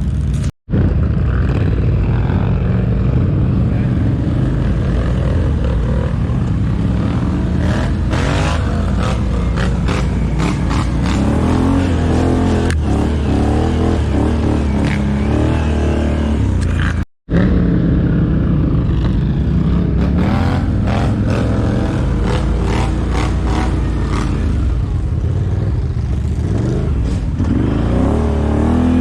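ATV engines running and revving on a dirt trail, the engine note rising and falling, with scattered clattering. The sound cuts out briefly twice, near the start and about halfway through.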